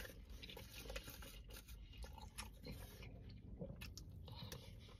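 A person biting into and chewing a beef taco: faint, irregular small clicks.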